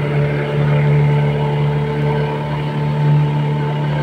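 Engine of an open wooden tourist boat running steadily, heard from on board as a constant low hum.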